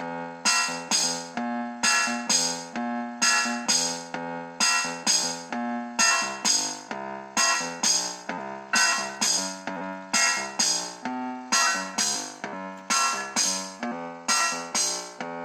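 Casiotone MT-100 electronic keyboard playing pitched notes and chords over a steady rhythm of short, hissy, cymbal-like percussion hits from its built-in rhythm section.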